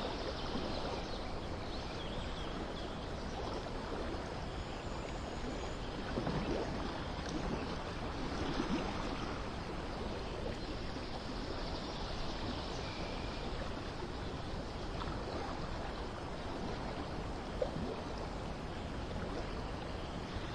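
Running water trickling and splashing steadily, as a garden stream or fountain does.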